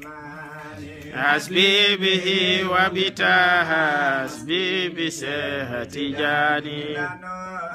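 A man's voice chanting in a wavering, ornamented melody, in phrases a second or two long with short breaks, louder from about a second in.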